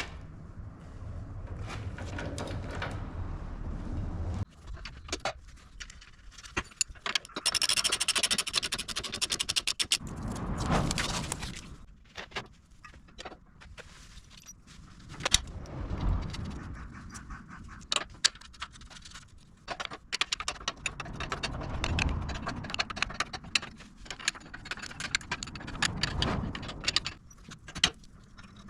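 Hand tools and steel parts clinking, scraping and knocking as a VW Beetle's front suspension arms are bolted back on, with scattered metallic clicks and a busier stretch of rapid rattling about a third of the way in.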